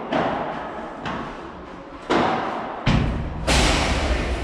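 Padel rally: five sharp ball hits off rackets and court walls, about a second apart, each followed by a short echo. A low rumble and rustle joins in about three seconds in.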